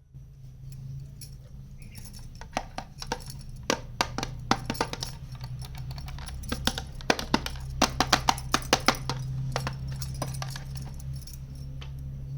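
Small plastic toy kitchen pieces clicking and clattering as they are handled: a quick, irregular run of sharp taps, busiest in the middle, over a steady low hum.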